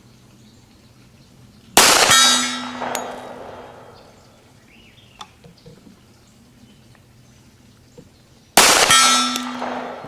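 Two shots from a 1911 pistol, about seven seconds apart, each a sharp crack followed by a ringing tail that fades over about two seconds: slow, aimed fire for an accuracy group at 25 yards.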